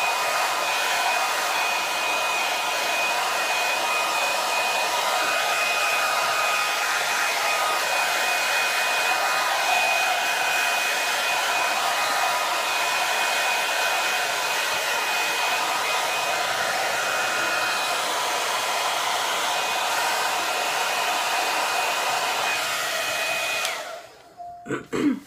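Handheld hair dryer blowing steadily on its cool setting, a rushing noise with a thin high whine, switched off near the end.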